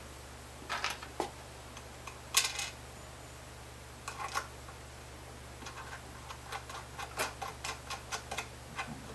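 Small metal clicks and ticks as a Grover 502C locking tuner is fitted into a guitar headstock by hand. The clicks are separate and scattered, the loudest about two and a half seconds in, then a quick run of small ticks over the last few seconds.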